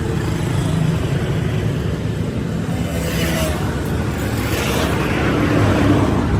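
A motor running with a steady low hum, with some background noise rising and falling over it.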